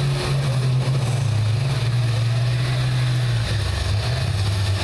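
School bus engines running in the derby arena, a steady low drone that shifts pitch slightly about three and a half seconds in.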